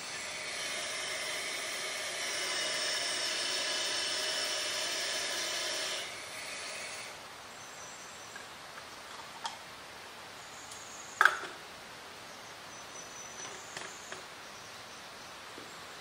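Water running from a sink tap into a bottle for about six seconds, then cut off. After that come a few small clicks and one sharp knock about eleven seconds in as the bottle is capped.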